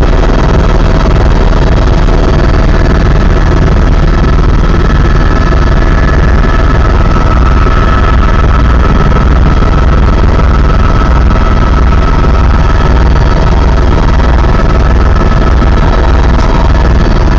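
Helicopter engine and rotor heard from inside the cabin in flight: a very loud, steady deep drone with a steady high whine over it.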